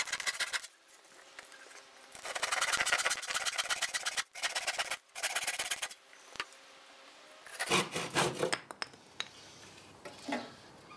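Hand saw cutting through a wooden board in three runs of quick back-and-forth strokes with short pauses between them, followed by a few knocks near the end.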